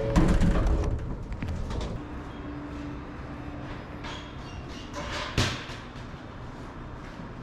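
Shonan Monorail car stopped at its terminal: a steady background hum with a few knocks and clunks, a sharp one about five and a half seconds in.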